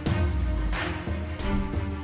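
Background music with sustained notes and a beat marked by regular cymbal-like hits.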